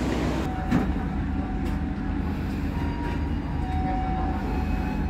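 Passenger train at a station, a steady low rumble with a few sharp clicks and faint brief squealing tones.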